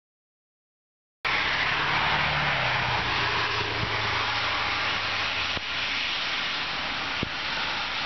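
About a second of silence, then the sound cuts in abruptly: a steady hiss of wind and street noise over a low vehicle engine hum that sinks slightly in pitch and fades out about halfway through. Two faint clicks come near the end.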